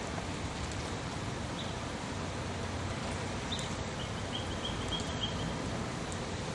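Steady outdoor rushing noise with a low rumble under it, and a small bird chirping a few times, with a quick run of chirps about four seconds in.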